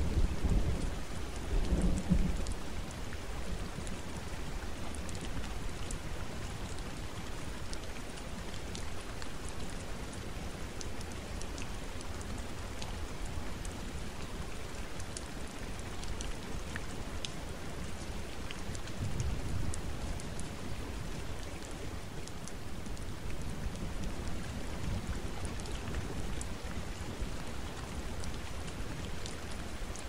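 Steady forest rain falling, with scattered individual drops ticking through the hiss. Low thunder rumbles roll in, loudest in the first couple of seconds, with fainter ones about two-thirds of the way through and again near the end.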